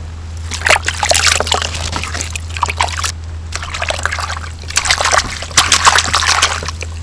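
Hands washing sweet corn cobs and a bunch of coriander in a bucket of water: splashing and sloshing in two bouts, one about a second in and another from about halfway until near the end. A steady low hum runs underneath.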